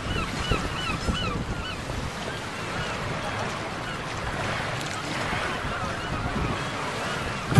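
Wind buffeting the microphone over the steady rush of a boat on open river water. In the first second a quick run of short, high chirping calls sounds over it.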